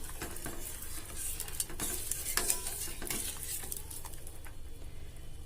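A spoon stirring powdered palm sugar into simmering milk in a pan, with irregular scrapes and clinks against the pan.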